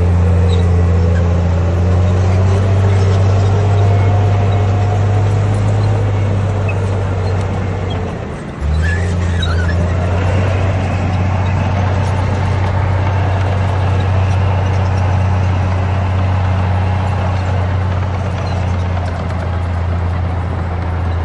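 Komatsu D58P bulldozer's diesel engine running steadily under load, with a faint rising whine over it; about eight seconds in the engine note briefly drops, then picks straight back up.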